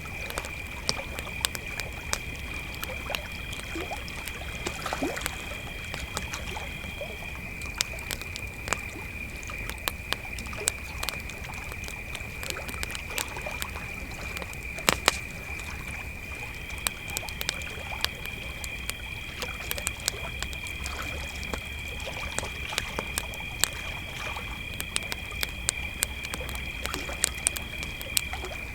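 Crickets chirping in a steady high-pitched chorus, a second, higher cricket falling silent for several seconds in the middle, over a campfire's frequent sharp crackles and pops.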